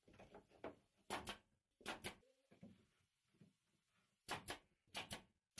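Nail gun firing nails into a pine trim board four times, each shot a quick double snap.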